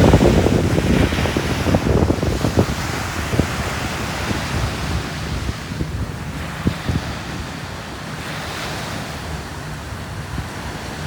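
Ocean surf washing onto the beach, with wind buffeting the microphone, heaviest in the first couple of seconds before settling to a steadier wash.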